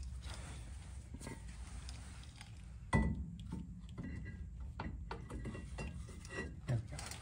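Small metallic clinks and scrapes as a 2007 Toyota 4Runner's rear brake rotor is worked onto the hub over the drum-in-hat parking brake shoes, with one sharp knock about three seconds in.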